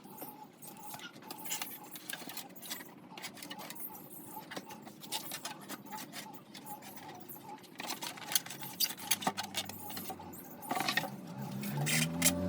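Light, irregular clicking and rattling of small hard parts being handled during disassembly of an air conditioner. Near the end a low hum rises in pitch and grows louder.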